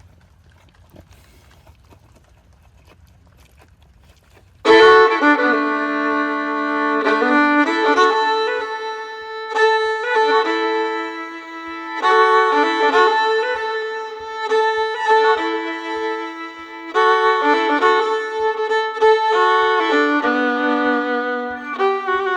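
Instrumental background music, a melody of held notes, starts suddenly about five seconds in after a few seconds of faint low hum.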